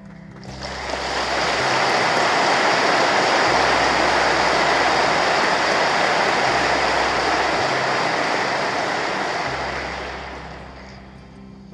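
Audience applauding in a church: the clapping swells in over the first second or so, holds steady, and dies away near the end.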